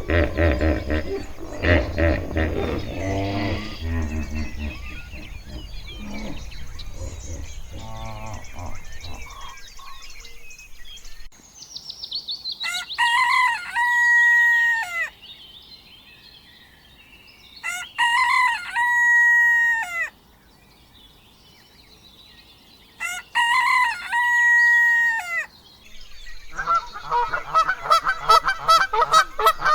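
A rooster crowing three times, each crow a long call that rises, holds level and drops at the end, spaced about five seconds apart. Before the crows there is a stretch of denser, lower animal sound. Near the end a flock of waterfowl starts honking in quick, repeated calls.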